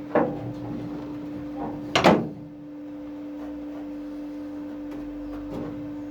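Hammer blows on steel bodywork during a car floor repair: two loud sharp strikes about two seconds apart, then a few fainter knocks, over a steady electrical hum.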